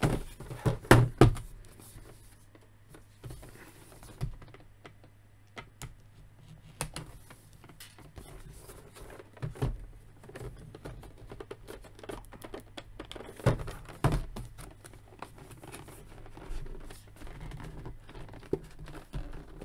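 Cardboard box and plastic tray packaging of an action figure being handled: scattered clicks, taps and crinkling as the tray is worked out of the box, with a few louder knocks at the start and again about thirteen seconds in.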